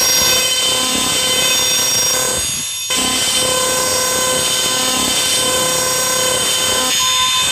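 Black MIDI played back through a soundfont: thousands of simultaneous synthesized piano notes blur into a dense, harsh, alarm-like wall of sound with rising sweeps. There is a brief drop in level about three seconds in.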